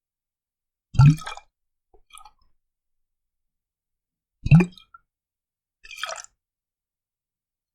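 Water gushing inside a glass bottle in two short surges about three and a half seconds apart, each a low glug rising in pitch with splashing on top. A fainter, lighter splash follows each surge.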